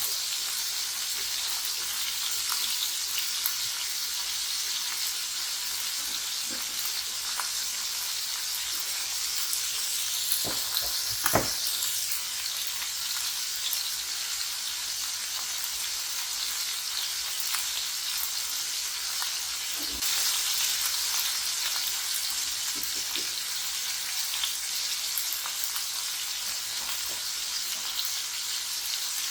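Food frying in hot oil in a pan: a steady sizzle, with a few light clicks and one sharper knock about eleven seconds in. The sizzle grows a little louder about two-thirds of the way through.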